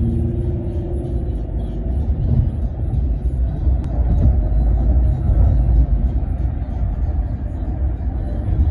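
Steady low road rumble inside a moving car's cabin at freeway speed: tyre and engine noise.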